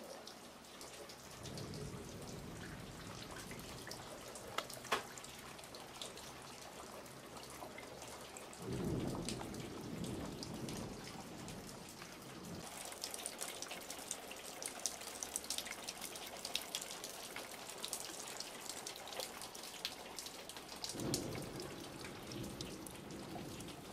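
Water leaking into a room and dripping, with many quick drips and patters. A low rumble swells up three times, most strongly about nine seconds in.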